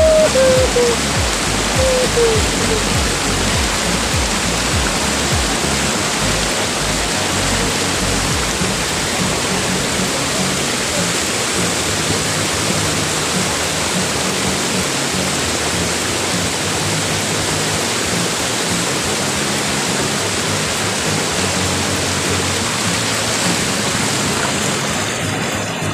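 Cold-spring waterfall pouring and rushing over a person lying in its stream, a steady, dense rush of falling water close to the microphone.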